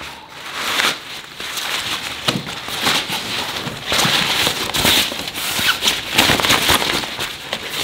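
Fabric rustling and crinkling as a foldable drawstring bag is handled and turned inside out, with many small irregular crackles.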